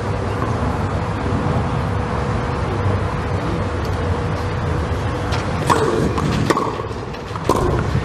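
Steady open-air court noise with a low rumble, then three sharp knocks roughly a second apart in the second half: a tennis ball being bounced on the clay before the serve.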